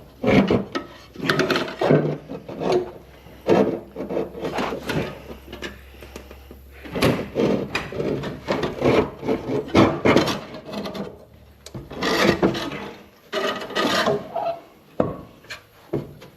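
Cylinder head being worked down over the block studs, scraping, rubbing and knocking in irregular strokes as it catches and slides.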